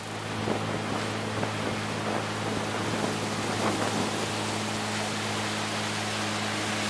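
Motorboat engine running with a steady low drone, over a hiss of wind and water. It grows louder in the first half second, then holds steady.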